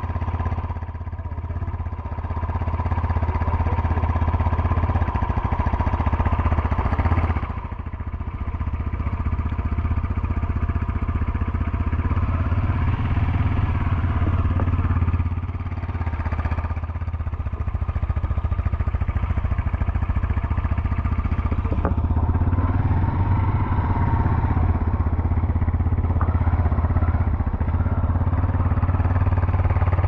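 Honda CG 150 Fan's single-cylinder four-stroke engine running steadily under way. The throttle eases off briefly about seven seconds in and again around fifteen seconds in.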